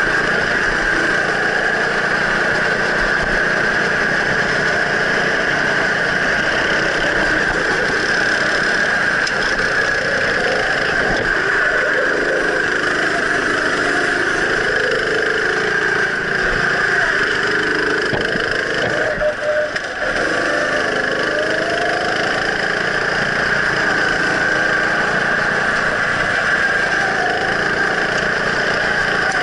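Go-kart engine running close to the microphone as the kart laps the track, its pitch rising and falling as the throttle is worked through the corners, with a brief lift off near the end of the second third.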